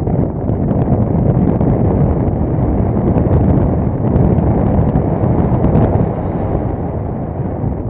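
Airflow rushing over the microphone of a camera mounted on a hang glider's wing in flight: a loud, steady wind roar with a deep rumble, easing a little near the end.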